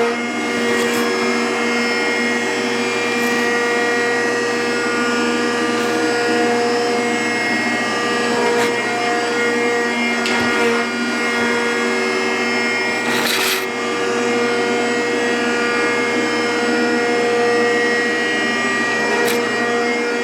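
Rockford 36-inch hydraulic open-side planer running, its hydraulic pump and drive motor giving a steady hum with several fixed tones, on its first run in some 30 years. A short hissing burst comes about thirteen seconds in.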